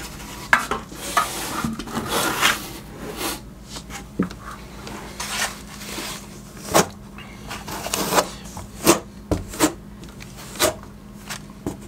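Steel notched trowel scraping thin-set mortar onto shower-wall backer board: a run of irregular rasping strokes with occasional sharper clicks as the trowel meets the board.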